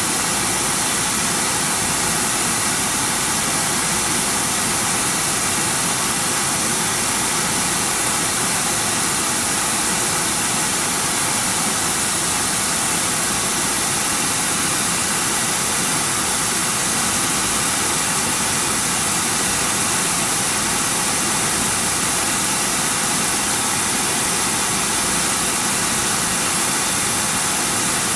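Oxy-acetylene powder spray welding torch running steadily, a loud, even hissing roar of the flame as metal powder is sprayed onto a motor shaft's worn bearing journal to build it up.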